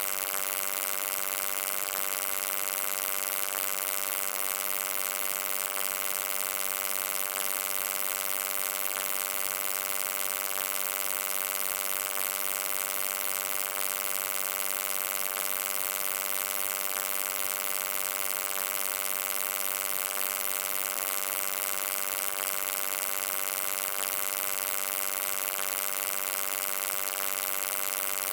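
Steady electric hum: a buzzing tone with many evenly spaced overtones under a bright, even hiss, unchanging throughout.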